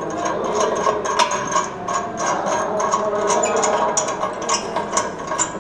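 Quick, irregular metallic clicking and clinking as the two nuts clamping the carbide tray at the base of a calcium carbide acetylene generator are loosened.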